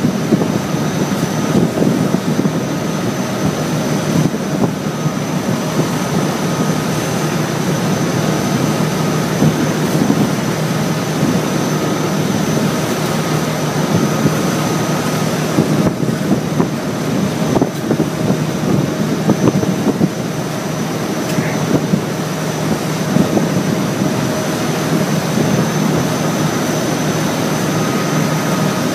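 Boat engine running steadily under way, a loud even drone with a steady hum over rushing noise.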